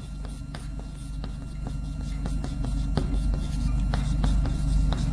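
Chalk writing on a blackboard: a quick, irregular run of small taps and strokes over a low steady hum that grows louder.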